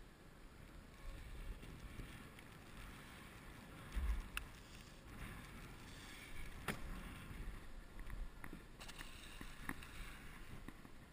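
Wind rumbling on the microphone, with scattered clicks and knocks, the loudest a thump about four seconds in, as a brass grain probe is handled over the open hatch of a corn-filled hopper car.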